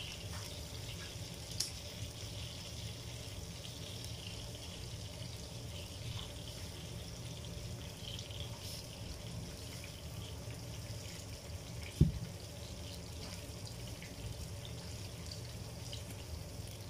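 Faint crackling sizzle of desiccated coconut toasting in a frying pan, over a steady low hum. A single thump about twelve seconds in.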